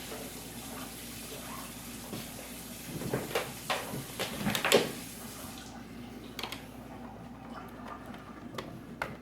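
Scattered clicks and knocks of a laptop's plastic parts being handled, clustered around the middle, over a steady hiss that stops a little over halfway through.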